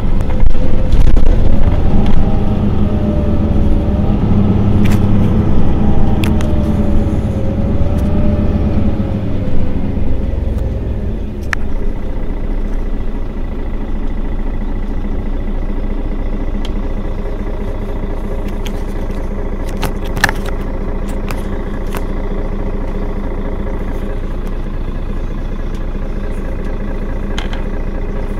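Mercedes-Benz Citaro facelift city bus idling at a stop. It is louder with a wavering tone for about the first ten seconds, then settles into a steady engine hum, with a few light clicks and one sharper click partway through.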